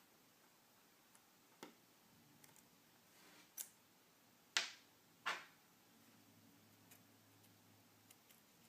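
A few faint, sharp clicks and taps of small hand tools and tiny screws being handled during a phone teardown. Two louder clicks come about four and a half and five seconds in.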